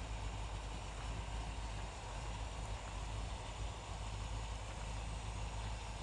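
1964 Corvette Sting Ray's 365 hp 327 V8 running steadily at low revs as the car rolls slowly through a turn.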